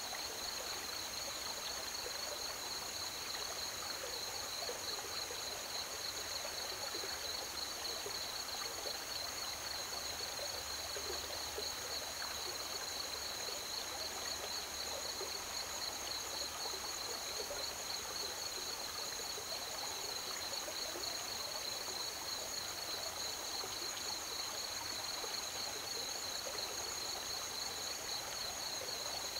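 Pedernales River water running steadily, with crickets chirping in a continuous high, finely pulsing chorus over it.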